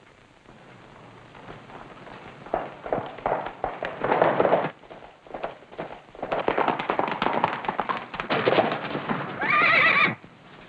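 Horses' hoofbeats drumming in and growing louder as riders arrive, then a horse whinnies briefly just before the end.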